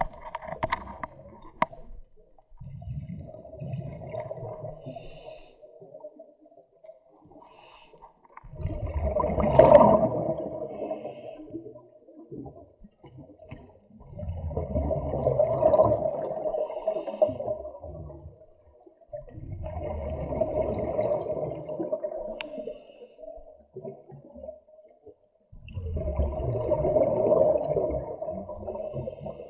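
Scuba diver breathing through an open-circuit regulator underwater: exhaled air bubbles out in about five long, rumbling bursts, five to six seconds apart, with quieter pauses and short hisses in between.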